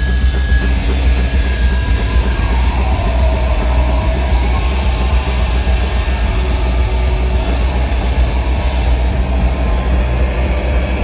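Loud live-band noise outro: an unbroken wall of amplified electric guitar feedback and distortion over a deep, steady bass drone, with thin feedback tones wavering through it, the guitar held up against its amplifier.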